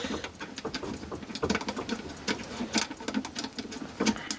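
Irregular scratchy clicks and scrapes of fingers working the cover fastener on an antique Fr Sauter SW30 timeswitch case, undoing the tamper-sealed cover.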